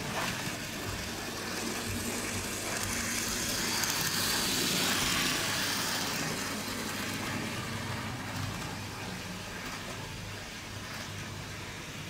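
Bachmann Wickham Type 27 trolley, an OO gauge model railcar, running along the track: its micro motor and wheels make a hissing whir that swells to a peak about four or five seconds in and then fades, over a steady low hum.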